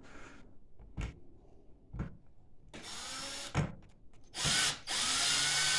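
Cordless drill/driver (AEG) driving at a screw in a wooden chair frame, after two light knocks: a short spin about three seconds in, then a longer, louder run near the end, its motor whine rising as it gets up to speed. The bit is too short to reach the sunken screw.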